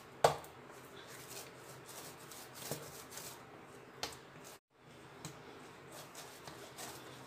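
Hands patting and pressing a soft lump of homemade air-dry clay flat on a stone counter: faint rubbing with about three sharp slaps, the loudest near the start. The sound cuts out for a moment about two-thirds of the way through.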